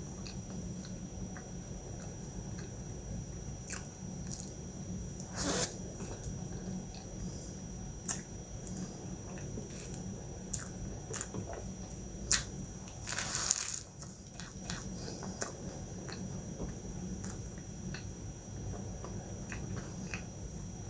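Close-up eating sounds: chewing a flaky, cream-filled milk pie pastry, with scattered small clicks of mouth and pastry and two louder crackling moments, about five seconds in and again around thirteen seconds.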